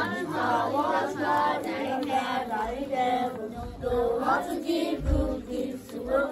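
A group of children's voices singing together in unison.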